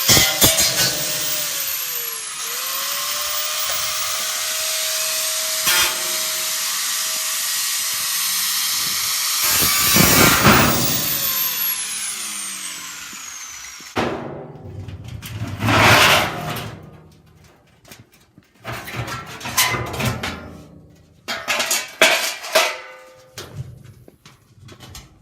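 Angle grinder cutting sheet metal, running steadily with a brief dip in speed about two seconds in, then switched off and whining down in pitch until it stops. Several short bursts of clatter follow.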